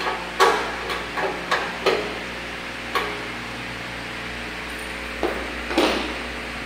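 Sharp metal clanks and knocks as the sheet-metal feed tray is worked onto a 9FC21 corn milling machine: about six knocks in the first two seconds, one more about three seconds in, and two near the end, over a steady background hiss.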